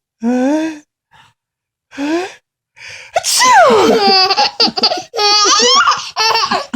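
A man's drawn-out gasping build-up and a loud sneeze about three seconds in, followed by a young child's high-pitched laughter.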